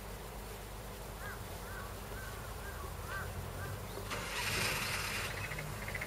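Frogs calling from a flooded rice paddy: a run of short chirps, about two a second, then a louder noisy burst about four seconds in. A steady low engine drone runs underneath.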